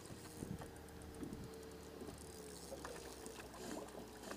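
Boat motor running steadily, a faint even hum, with a few faint clicks.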